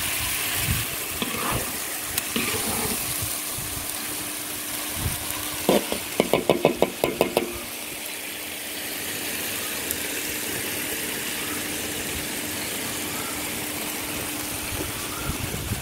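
Chicken in thick red chili sauce sizzling and simmering in a wok, over a steady faint hum. About six seconds in, a metal spatula clacks against the wok in a quick run of strikes.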